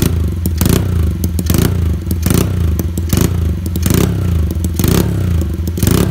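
Small single-cylinder motorcycle engine idling through an SFX aftermarket exhaust, heard right at the muffler outlet: a deep, steady rumble broken by a short loud burst of noise about once a second.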